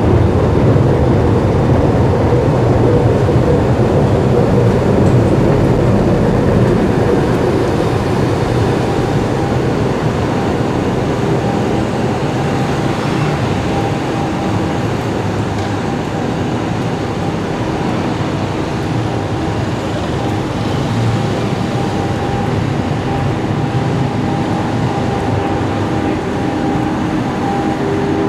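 Steady rumble of a moving escalator and station machinery, giving way after about ten seconds to outdoor city traffic noise with a faint steady hum.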